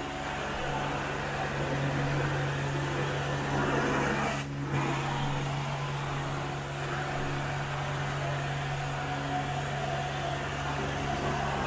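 Carpet extraction wand pulling suction across carpet: the extractor's vacuum runs with a steady hum and a rush of air, dipping briefly about four and a half seconds in.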